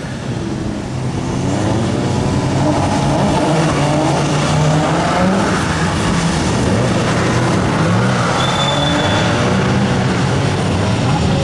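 Cars lapping a race circuit, their engines revving up and down over and over.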